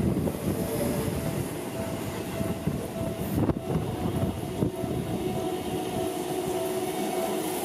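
Seibu electric commuter trains running past close by: steady rumble of wheels on rail with repeated clacks over the rail joints and a steady high tone on top.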